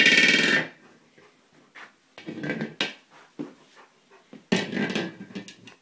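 German Shepherd worrying a hard plastic buoy: a short, harsh, buzzy vocal sound from the dog at the start, then scattered knocks and scuffs as it paws and bites at the ball.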